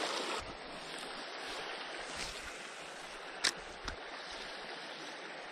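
Creek water running steadily, with two short, sharp clicks a little past halfway through.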